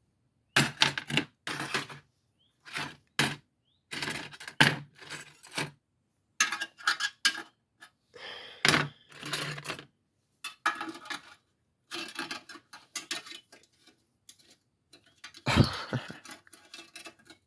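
Metal clinking and rattling in short, irregular bursts as a hose clamp is handled and fitted over a tin-can exhaust baffle.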